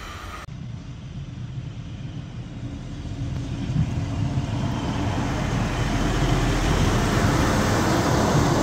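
DB Class 628 diesel multiple unit's engine running with a low rumble that grows louder from about three seconds in.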